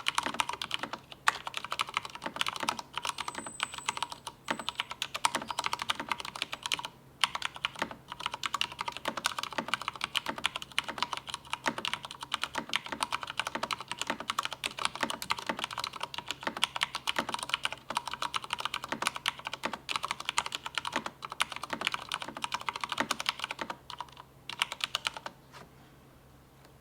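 Fast, continuous typing on a Drop CTRL mechanical keyboard with Cherry MX Brown tactile switches lubed with Krytox 205g0, stabilizers also lubed. The keystrokes run densely with one brief pause, then stop about a second and a half before the end.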